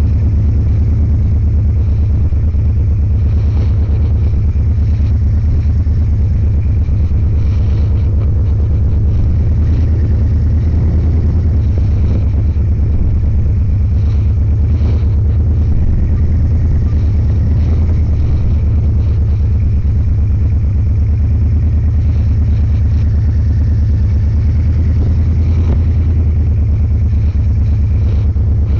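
Motorcycle engine running steadily while riding along, a constant low drone with road and wind noise and no marked changes in speed.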